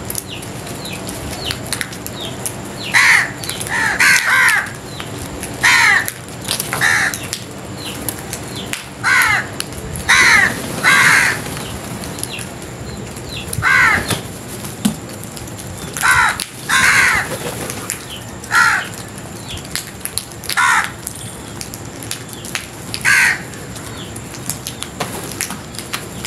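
House crows cawing: loud, harsh caws repeated every second or two, some in quick pairs, starting about three seconds in.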